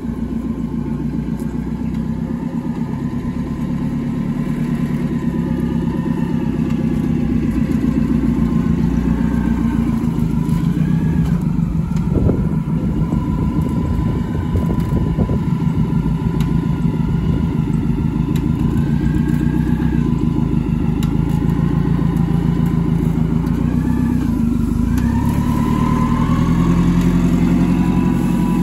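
Propane-fuelled Komatsu forklift's engine running, with a whine that rises and falls several times as it works. There is a brief clatter about twelve seconds in.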